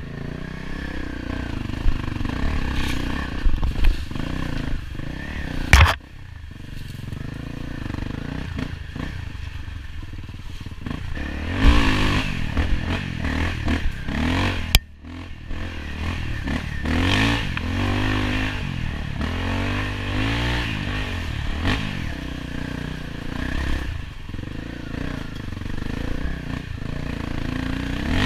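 Enduro dirt bike engine running under way, the revs rising and falling continually as it is ridden along a dirt trail, with clatter from the bike. Two sharp knocks stand out, one about six seconds in and another about halfway through.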